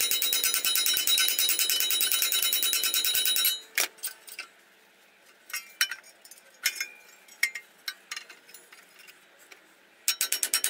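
Rapid, evenly spaced hammer blows peening rivets in an aluminium sheet-metal motor bracket, the metal ringing and the blows echoing inside the box. They stop a little over three seconds in, give way to a few scattered taps and clinks as the bracket is handled, and start again near the end.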